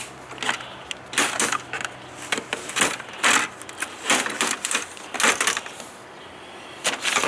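Plastic snap tabs of an LCD monitor's front bezel clicking and snapping loose as the casing is pried apart, with scraping between, in an irregular run of sharp clicks and short crackles.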